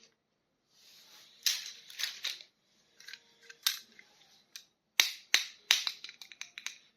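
Small plastic toy packaging being handled and opened: crinkling with sharp plastic clicks, ending in a quick run of snaps from about five seconds in.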